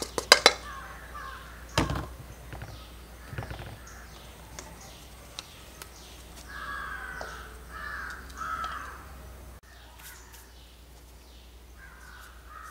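Crows cawing: a run of about four short caws in the middle and another near the end. A few sharp metal clinks of a steel pan against a steel bowl come at the start.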